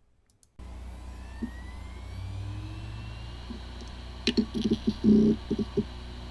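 Hard drive powering on: the platters spin up with a hum and a rising whine, then the heads make a short burst of ticks and knocks as they seek. It sounds like a healthy drive, though this one has corrupted disk firmware and is not detected by the computer.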